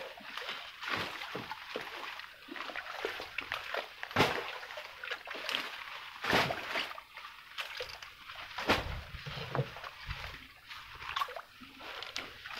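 Paddle strokes in river water from a small boat: irregular splashes and sloshes every second or two.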